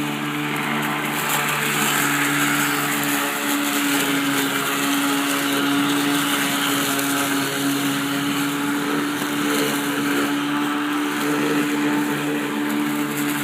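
Battery-less electric lawnmower running steadily while mowing grass: a constant motor and blade hum with a steady pitch, over a hiss that rises and falls a little.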